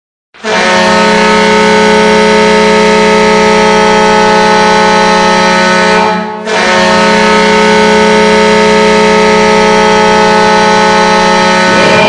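Ice hockey goal horn blowing a loud chord of several steady tones in two long blasts, with a brief break about six seconds in.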